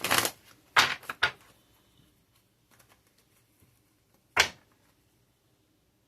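Four short, sharp clacks: three close together in the first second or so and one more a few seconds later, with quiet between.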